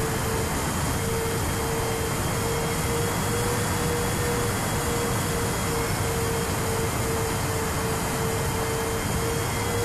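Onboard sound of the Sonicmodell Binary's twin SunnySky 2212 electric motors and propellers at cruise: a steady mid-pitched whine that pulses about twice a second, under heavy wind rush over the airframe and microphone.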